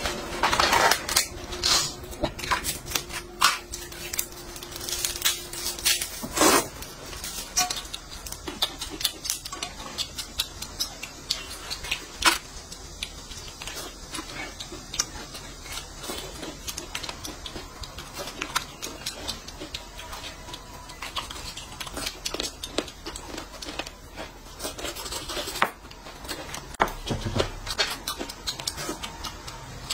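Close-up eating and table-handling sounds: a dense run of crackles and clicks over the first several seconds as a wrapped food item is peeled open, then scattered clicks and clinks of utensils and metal bowls along with chewing.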